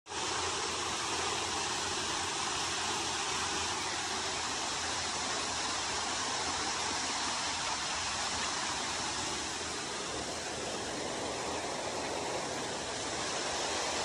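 Waterfall and shallow river water rushing steadily.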